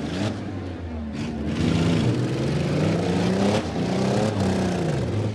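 Demolition derby vans' and pickup trucks' engines revving hard, the pitch climbing and dropping again several times.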